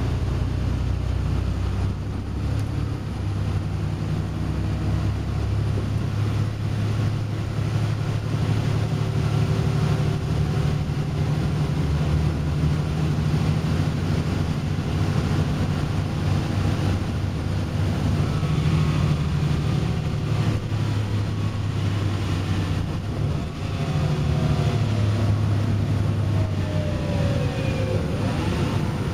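Inside a moving Volvo B7RLE single-deck bus: the engine drones steadily together with road noise, its note rising and falling as the bus pulls away, changes gear and eases off. A falling whine is heard near the end.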